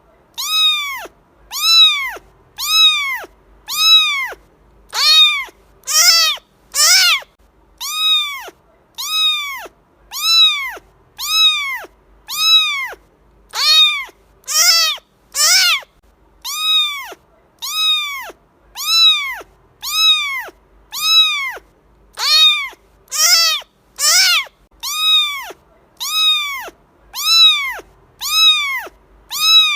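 Cat meowing over and over: short, high meows about once a second, each rising and then falling in pitch, repeated at a very even pace.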